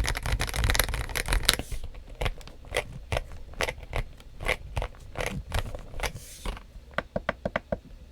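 Typing on a modded KBM1800 (James Donkey RS2) mechanical keyboard with Kailh Box Cream switches and Idobao MA keycaps, its case filled and stabilizers tuned: a fast flurry of keystrokes for the first second and a half, then slower single key presses, and a quick even run of taps near the end.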